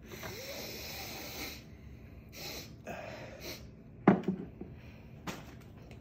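A person sniffing hard through the nose to take in sprayed perfume: one long drawn breath, then two shorter sniffs. A sudden short loud sound comes about four seconds in.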